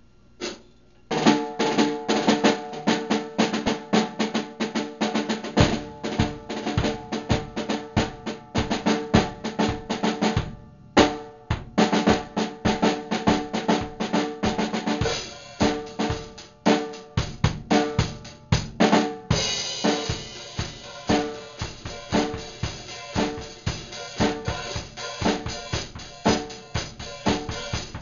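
Acoustic drum kit played in a fast solo jam: rapid snare and tom hits with bass drum, starting about a second in. There is a brief break partway through, and cymbals wash over the hits in the last third.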